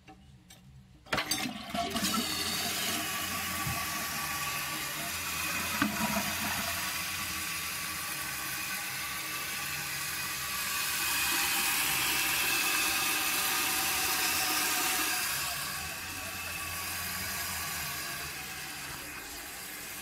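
1995 Mansfield Alto toilet being flushed with its tank lid off: a handle clunk about a second in, then water rushing out of the tank, followed by the fill valve hissing as the tank refills.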